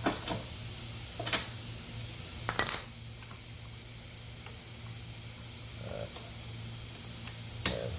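Steady hiss of compressed air escaping from a leaky air hose, over a low hum, with a few light metallic clinks of tools, the sharpest about two and a half seconds in.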